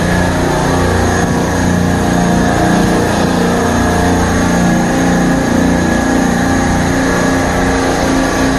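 Supermarket refrigeration rack compressors running: a loud, steady mechanical hum that does not change.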